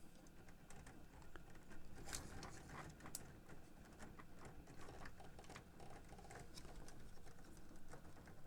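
Faint, scattered light clicks and taps as the plastic and metal parts of a Sony TC-K61 cassette deck are handled and unscrewed by hand, over a low steady hum.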